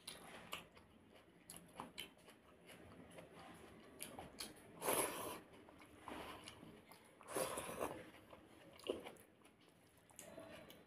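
Close-up eating sounds of dahi pakhala (fermented water rice in curd) eaten by hand: rice squishing as fingers mix it in a steel bowl, with chewing. The sounds come in an irregular run of short noises, a few of them louder.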